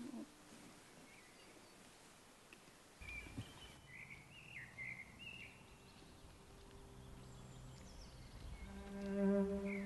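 Quiet outdoor ambience with a few birds chirping and a low wind rumble. Near the end, slow bowed-string music (violin and cello) fades in and becomes the loudest sound.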